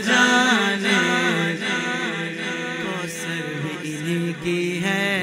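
A man singing a naat, an Urdu devotional song, in long drawn-out melodic phrases over a layered, chant-like vocal backing.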